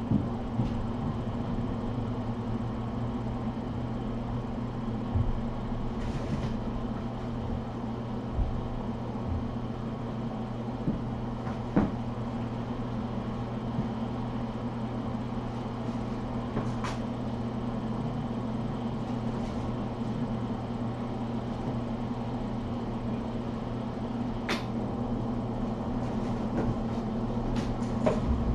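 Steady low electrical hum of a room appliance, with a few faint taps and clicks scattered through it.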